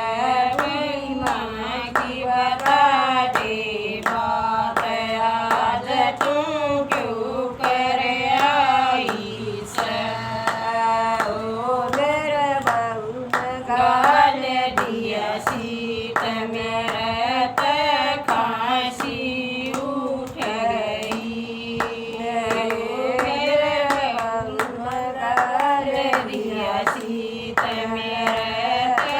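A Haryanvi bhajan sung in a woman's voice, with steady rhythmic hand clapping keeping the beat throughout.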